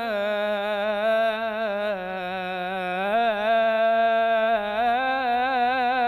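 A young male munshid singing an Egyptian ibtihal, an Islamic devotional supplication, with no accompaniment: one long melismatic held note on the vowel of 'yā', full of wavering ornamented turns. The pitch sinks about two seconds in and climbs back a second later.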